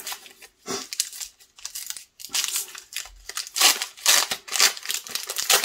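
Wrapper of an Upper Deck hockey card pack being torn open and crinkled by hand: an irregular run of crackling rustles, loudest in the second half.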